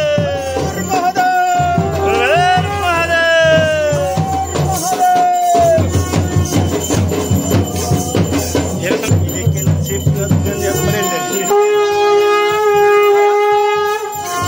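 Garhwali dhol and damau drums playing a steady rhythm, with a horn blown in rising and falling gliding notes. The drums drop out about 11 seconds in, leaving the horn holding a steady note.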